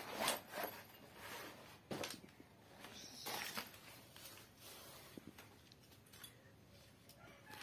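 Rustling of a black fabric carrying bag, with light knocks and clicks, as a new tripod is pulled out and handled. Several short bursts come in the first few seconds, then fainter handling noise.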